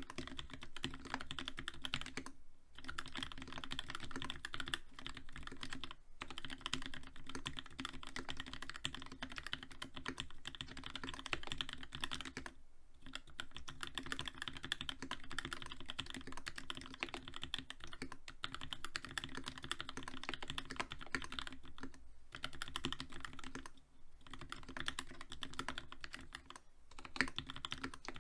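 Fast, continuous typing on a TX87 mechanical keyboard with a brass plate, lubed Gateron FEI linear switches with Cherry Black top housings, and GMK ASCII doubleshot keycaps, with no sound dampening. Quick keystroke clacks broken by a few short pauses.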